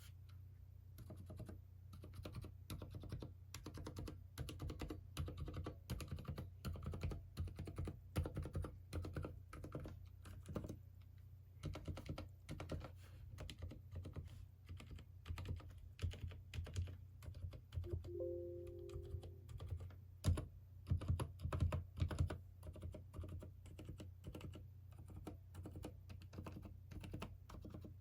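Continuous fast typing on a Durgod x Thinkway Tauche.T mechanical keyboard with Cherry MX Silent Red switches, which are linear switches damped with rubber. The keystrokes come in quick, uneven runs. A short steady tone sounds about two-thirds of the way through.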